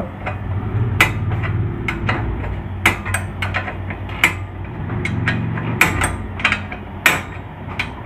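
A 14 mm spanner clinking and knocking against a nut and the motorcycle's metal as the nut at the silencer mounting is worked loose: a series of sharp, irregular metallic clicks.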